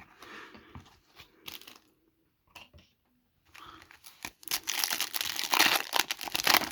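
Wrapper of a Chrome trading-card pack being crinkled and torn open, with light rustling at first and loud crinkling and tearing over the last couple of seconds.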